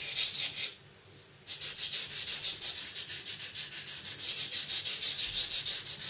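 Steel knife blade stroked back and forth on a wet green silicon-carbide waterstone, 220 grit, in its slurry: quick strokes about five a second, with a short pause about a second in.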